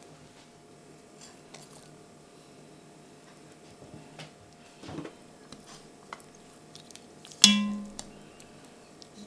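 Metal tongs strike an enamelled cast-iron casserole once, about 7.5 s in, with a sharp ringing clink that dies away within about half a second. Before it come a few faint clicks and a soft knock.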